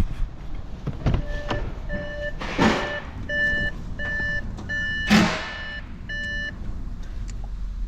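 Electronic reversing alarm beeping steadily, a string of short flat beeps about two a second, over a low vehicle rumble. Two short rushing bursts, the loudest sounds, come about a third and two-thirds of the way through.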